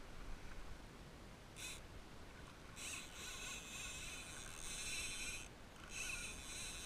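Fishing reel buzzing in bursts: a short one, then two longer runs separated by a brief pause.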